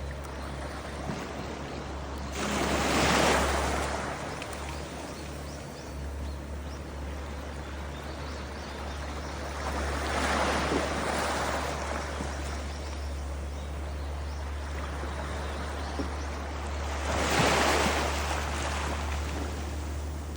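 Sea waves washing in three times, about seven seconds apart, over a steady low hum.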